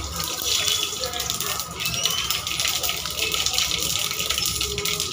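Mustard seeds spluttering in hot oil in a kadai: a dense crackle of many small pops over a sizzling hiss as the seeds burst in the heated oil.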